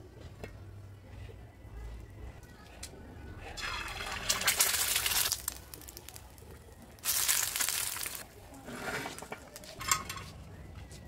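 Egg frying in hot oil in a steel frying pan over a wood-fired rocket stove: loud sizzling that comes in bursts, about four seconds in and again about seven seconds in, then weaker.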